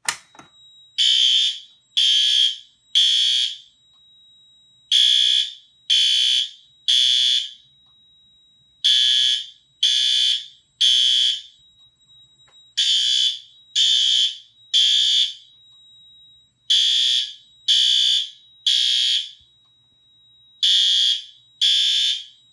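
System Sensor L-Series fire alarm horn strobes sounding the temporal-three evacuation code: three half-second blasts, a pause, then the same again about every four seconds, six rounds in all. A sharp click comes right at the start, and a faint steady high tone runs under the blasts.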